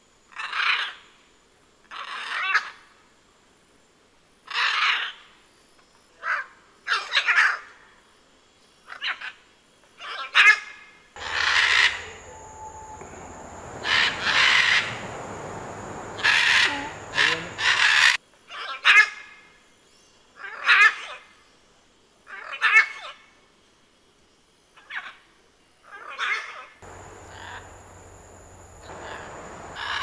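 Scarlet macaws giving loud squawks, one every second or two, sometimes two or three close together.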